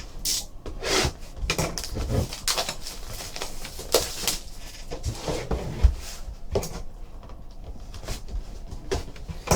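A box of trading cards being opened and its packs and cards handled by hand: irregular rustling, scraping and light taps of cardboard and wrappers.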